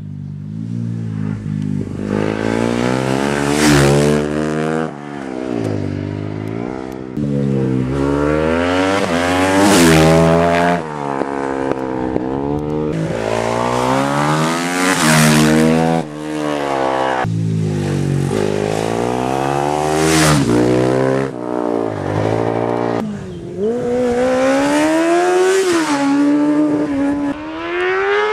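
Racing motorcycle engine at full throttle, working up through the gears: the pitch climbs and drops sharply at each shift, again and again, with several loud peaks. Near the end it settles into a steadier, higher whine that rises as the bike climbs on up the hill.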